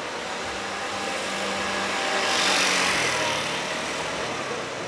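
A motor vehicle passing close by, its engine and tyre noise swelling to a peak about halfway through and then fading, the engine hum dropping in pitch as it goes past.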